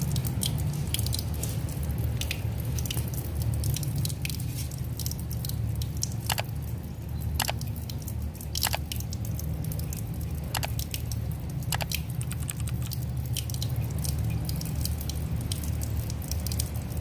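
Thin stream of water from an outdoor tap trickling and dripping, with sharp wet clicks and splashes as a cat paws at the stream and laps from it. A steady low rumble runs underneath.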